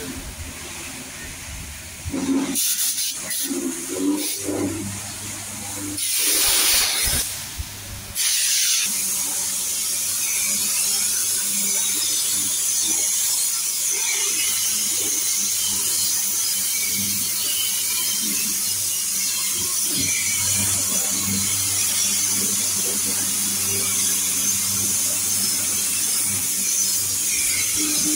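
Pressure washer in use: the spray hisses in short bursts at first, then runs steadily from about eight seconds in over the hum of its electric pump.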